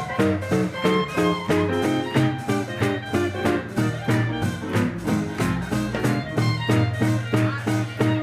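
Live swing band playing an instrumental passage, with piano, guitar, saxophones and double bass over a steady beat.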